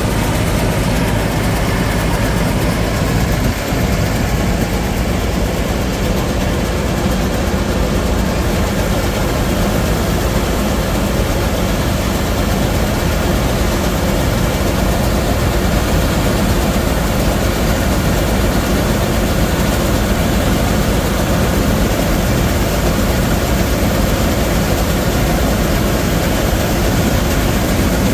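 Laverda M100 AL combine harvester running steadily, its engine and machinery going without a break while the unloading auger empties wheat grain into a trailer.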